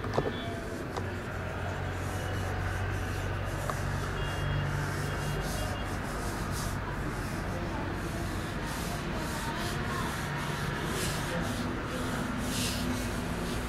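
A pen scratching across paper in quick, irregular sketching strokes over a steady low hum, with a sharp tap right at the start.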